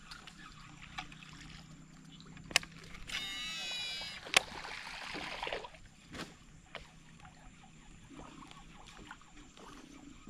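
Fishing-reel sounds during a cast. The spool whirs with a pitch that rises and falls for about a second, a sharp click follows, and then comes a noisy stretch of reel and line noise, with scattered smaller clicks and a low hum underneath early on.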